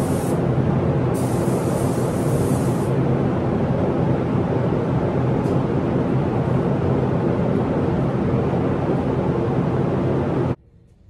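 Paint booth ventilation fans running with a steady, loud hum, while the spray gun's air hisses in two short spurts in the first three seconds. The fan noise cuts off suddenly near the end.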